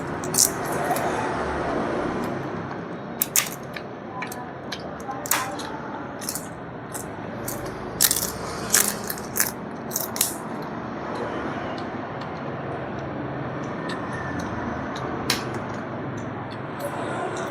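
Eating sounds: irregular sharp clicks and crackles of chewing and handling crisp rice-paper food, bunched together in the middle of the stretch, over steady background noise.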